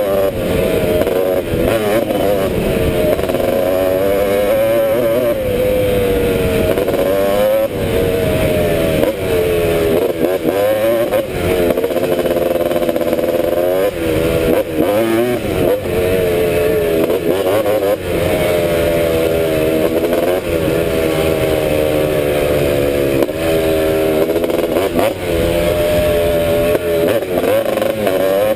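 1986 Honda ATC250R three-wheeler's two-stroke single-cylinder engine being ridden hard, its pitch climbing and dropping again and again with throttle and gear changes. It runs well.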